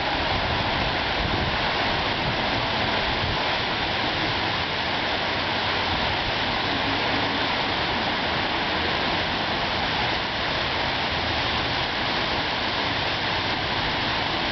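Steady rush of small surf breaking and washing up a sandy beach.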